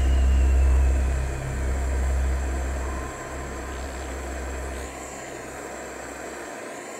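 Gas soldering torch burning with a steady hiss as it heats a fine silver ring on the soldering block. Low bass from music carried over from before fades out by about two-thirds of the way through.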